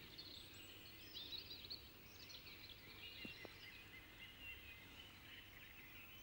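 Near silence with faint birdsong: scattered high chirps and short trills, with two faint ticks a little after three seconds in.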